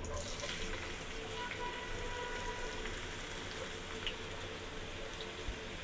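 Freshly added chopped onions sizzling steadily in hot oil in a kadai.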